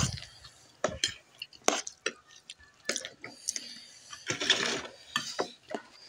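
Spoons and forks clinking and scraping on plates and a steel food container while people serve themselves and eat, with scattered sharp clicks and a louder stretch of noisy rustling about four and a half seconds in.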